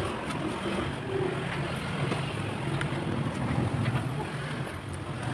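Steady low engine rumble of street traffic, with a few faint clicks of a spoon and chopsticks.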